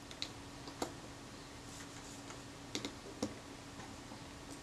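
A few faint, scattered small metallic clicks and ticks as tiny screws are tightened into the case of a camera lens shutter unit, over a faint steady hum.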